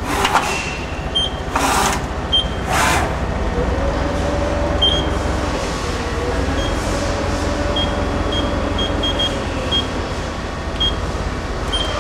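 1995 Kia KIT-30A CNC lathe's axis drives whining as the gang tool slide is jogged in manual mode, with two drawn-out moves in the middle, over the machine's steady low hum. Three short noisy bursts come in the first few seconds, and light high ticks are scattered through.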